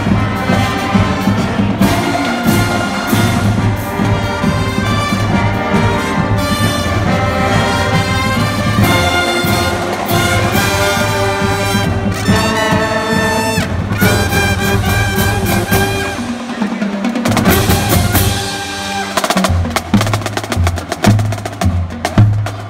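Marching brass band playing a tune on trumpets and trombones over a steady bass-drum and snare beat. About three-quarters of the way through, the brass drops out and the drums carry on alone with sharp, accented beats.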